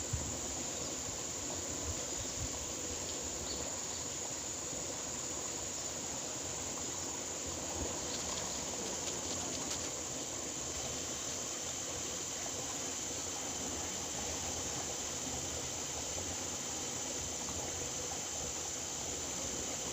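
Steady rush of flowing water, with a thin steady high-pitched hiss above it and a few faint ticks.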